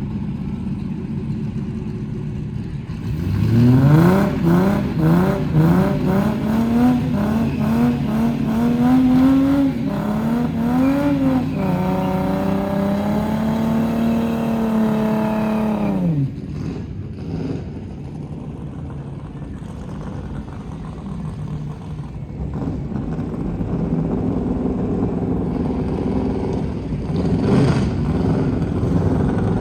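Holden VS Commodore launching off the line on a drag run. The engine revs climb and drop back several times as the automatic shifts up, hold steady under full throttle, then fall away about sixteen seconds in as the driver lifts off, leaving a lower engine rumble.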